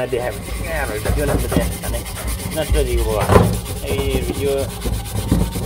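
Steel wool scrubbing burnt-on residue from the inside of an aluminium pressure cooker, in quick back-and-forth rasping strokes with squeaks of metal on metal.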